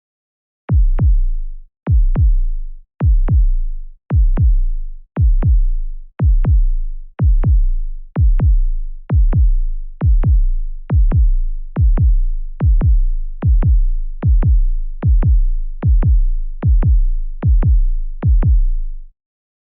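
Suspense sound effect of deep electronic kick-drum thumps in pairs, like a heartbeat, repeating about once a second and slowly speeding up.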